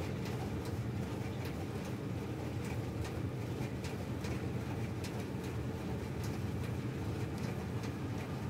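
A steady low hum, with faint light ticks a few times a second over it.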